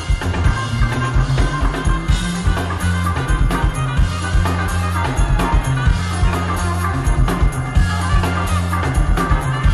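Live funk band playing: a drum kit keeps a steady beat under a sustained bass line, with guitar and keyboards on top.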